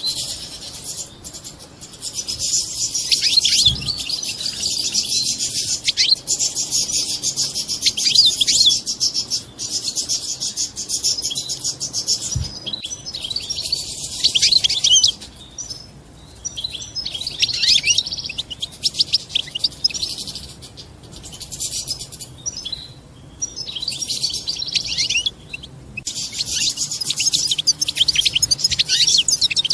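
European goldfinch twittering: rapid, high-pitched chattering in phrases a few seconds long with brief pauses between them. This is the 'batbata' chatter played to stimulate goldfinches and bring on courtship.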